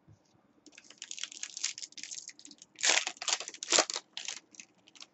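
A stack of trading cards being handled, the cards sliding and scraping against one another in quick dry rustles from about a second in, loudest around three to four seconds in.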